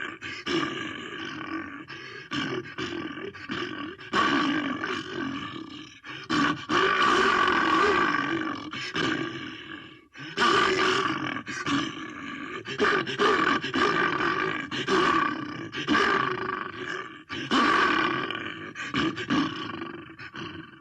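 Designed creature calls for Daeodon, a giant boar-like prehistoric entelodont: a run of loud growling roars and grunts, one after another with short breaks between them.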